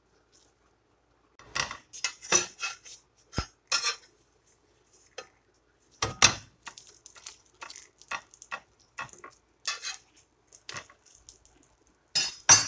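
Kitchen utensils and cookware clattering: a run of irregular clinks and knocks starting about a second and a half in, ending in a quick cluster.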